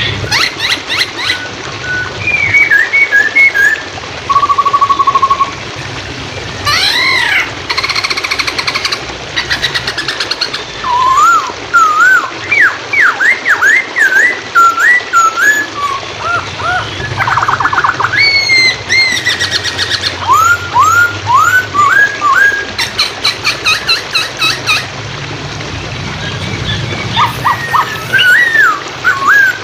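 Poksay hongkong singing a loud, varied song: clear whistled notes that slide up and down, a held whistle, and fast rattling trills in quick succession. Under it runs a steady rush of flowing water.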